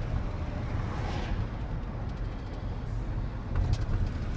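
Ford F-150 pickup driving, heard from inside the cab: a steady low road and engine rumble.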